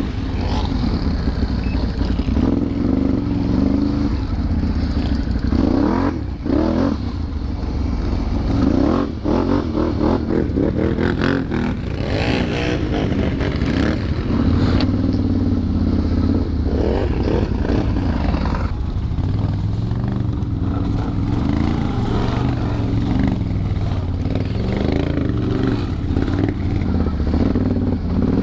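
Can-Am Renegade 1000 XXC ATV's V-twin engine running on a trail ride, its pitch rising and falling as the throttle opens and closes, with clatter from the machine over rough ground.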